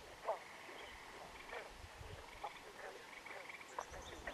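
Frogs calling at a lake: a string of short calls, each falling in pitch, spaced irregularly about half a second apart, with a brief higher buzzing trill near the middle. Faint wind rumbles underneath.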